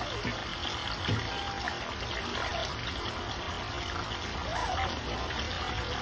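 Steady trickling, running water, with a few faint short squeaks that rise and fall in pitch.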